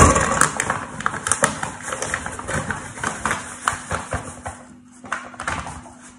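Paper bag of plain flour crinkling and rustling as flour is poured from it into a plastic mixing bowl, with a sharp knock right at the start.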